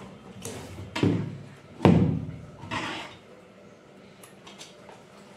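About four knocks and thuds as a home theater amplifier circuit board on its mounting panel is handled and bumped against the workbench, the loudest about two seconds in.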